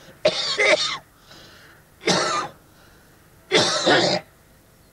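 A man coughing and hacking in three harsh bouts, about a second and a half apart, winded after training exercises.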